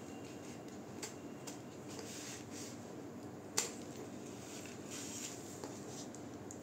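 Large tailoring scissors cutting through newspaper, giving a few irregular snips. The loudest comes about three and a half seconds in.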